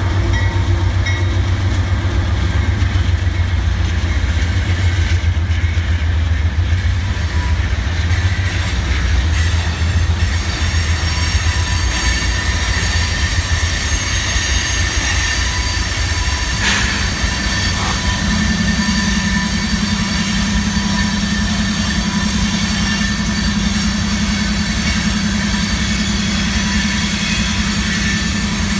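CSX diesel-electric locomotives rumbling past at low speed, then tank cars rolling by with wheel noise and a thin steady wheel squeal; one sharp clank about two-thirds of the way through. After that a steady low engine hum comes in as another locomotive in the train draws near.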